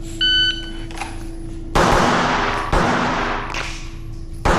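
Shot timer's start beep, then pistol shots about a second apart on a classifier string, each with a long echoing tail.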